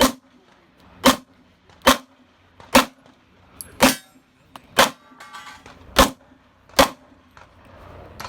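Pistol shots fired one at a time at a steady pace, about one a second, eight in all.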